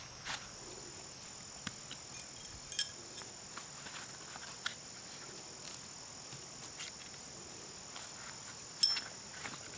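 Steady high-pitched chirring of crickets, with a few light clicks and knocks from the bownet's stakes being pulled up; the loudest is a short ringing metallic clink near the end.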